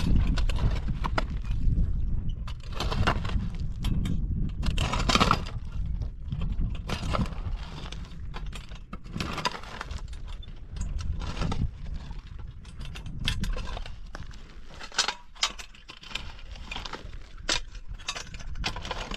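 Long-handled shovel scraping and digging through dry, stony soil, with stones knocking and clinking against each other in irregular strokes.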